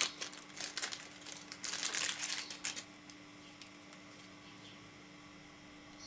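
Small clear plastic bag crinkling as it is handled and pulled open, in two spells, the longer one about one and a half to three seconds in, then falling quiet.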